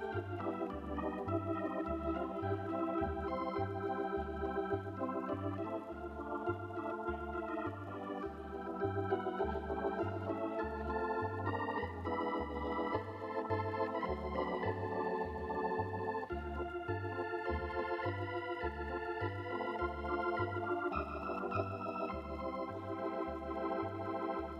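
Organ music, chords and melody over a bass line that pulses about twice a second.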